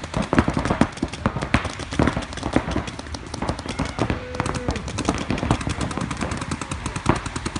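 Paintball markers firing rapid, irregular strings of sharp pops, several shots a second.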